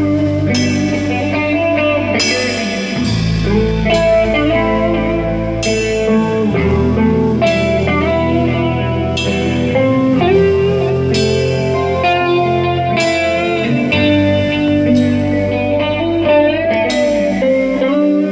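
Blues-rock music played on electric guitar over bass and drums, with cymbal crashes about every two seconds.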